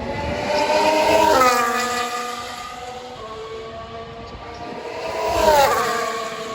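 Two Formula 1 cars pass one after the other, each engine note rising as it approaches and dropping sharply in pitch as it goes by, the first about a second in and the second near the end.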